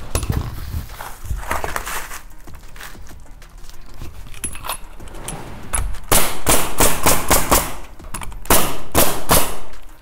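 Bostitch pneumatic coil roofing nailer firing two quick runs of nails into asphalt starter-strip shingles, about six seconds in and again near the end. Shuffling and handling noise comes first.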